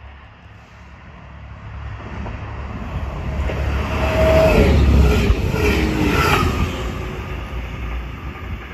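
DSB IC3 diesel multiple unit running through the station at speed. It rumbles louder as it approaches and is loudest about halfway through as it passes. Its tones drop in pitch as it goes by, then it fades as it moves away.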